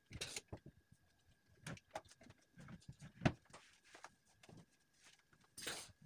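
Housework noises: slippers scuffing on a tiled floor, a cloth swishing over a wooden bed frame, and scattered light knocks against the furniture, the sharpest a little over three seconds in.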